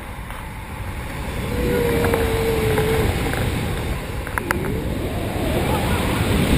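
Wind rushing over the microphone of a paraglider in flight, a loud steady low rumble, with a faint held tone about two seconds in.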